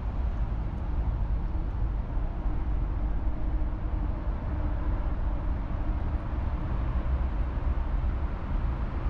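Steady low outdoor rumble with no distinct events standing out.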